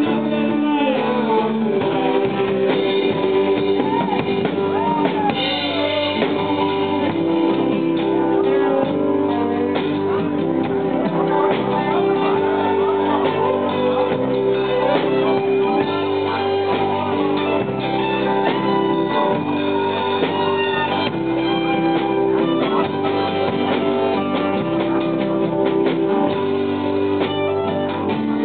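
Live band playing a song with strummed acoustic guitar, electric bass and electric guitars, with some singing.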